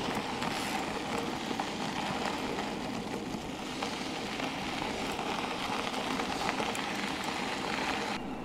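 The steady rush of an e-bike ride, with tyres rolling and the riding wind, and a few faint ticks scattered through it.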